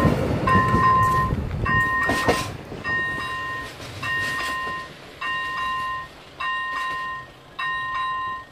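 Level crossing warning signal ringing: an electronic two-note tone sounding in short, evenly spaced bursts about once every 1.2 seconds. Underneath, the noise of a passing train's wheels on the rails fades away over the first couple of seconds.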